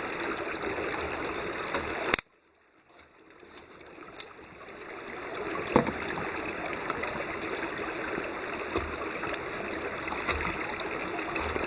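Steady rushing noise of running water, like a nearby stream. It cuts out abruptly about two seconds in, fades back up over the following few seconds, and has a few sharp clicks, one louder near the middle.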